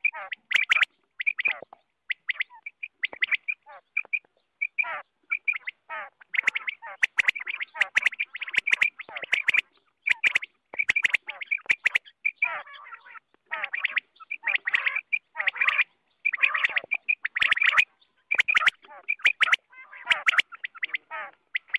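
Common quail calling over and over in short, rapid notes, in runs broken by brief silent gaps.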